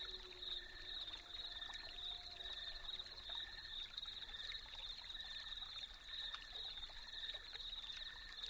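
Quiet background soundtrack: a steady high hiss with a faint regular pulse and a few soft, slowly gliding tones.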